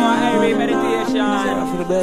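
Music: the opening of a song, with sustained accompanying notes stepping from pitch to pitch under a wavering melodic line.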